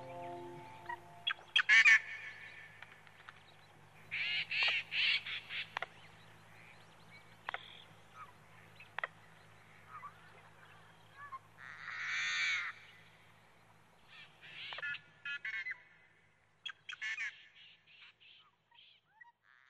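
Birds calling: scattered short calls, a longer call about twelve seconds in, and a quick run of calls near the end.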